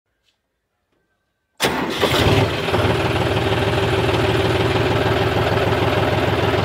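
Silence, then about a second and a half in a John Deere tractor's diesel engine starts up and settles into a steady idle.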